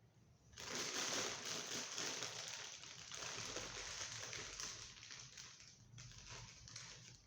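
Plastic packaging crinkling and rustling as it is handled, starting about half a second in and easing briefly near the end.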